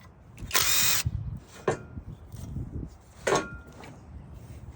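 Skil brushless impact driver running on the engine's oil cooler bolts in short trigger pulls: one loud half-second burst about half a second in, then two brief blips.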